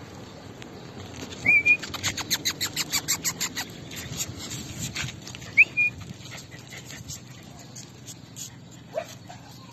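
Small dogs yapping in a quick run of short barks, about six a second for a couple of seconds, with a couple of brief high squeaky whines.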